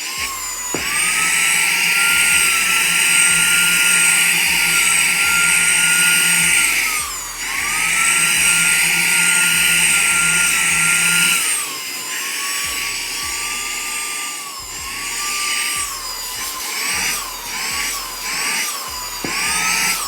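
Saker 3-in-1 cordless handheld mini vacuum running as it cleans a sofa, a high motor whine with airy hiss. Its pitch dips and recovers twice, then wavers up and down more often near the end as the nozzle works over the cushions.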